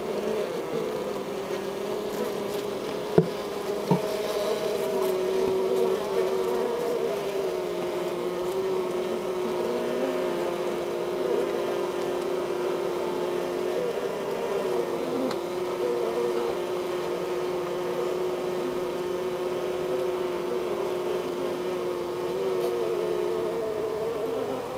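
Honeybee colony humming inside the hive: a steady, dense buzz of many workers on the comb. Two short knocks sound about three and four seconds in.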